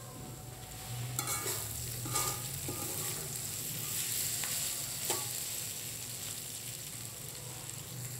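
Tempe cubes with sliced onion and chili sizzling in an aluminium wok while a spatula stirs and scrapes through them, with sharper scrapes against the pan about a second in, two seconds in and five seconds in.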